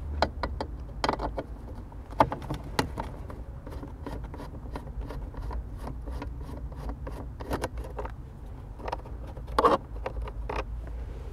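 Scattered small clicks, taps and scrapes of hand work on a car's plastic dashboard trim and its screws, with a louder clatter about nine and a half seconds in.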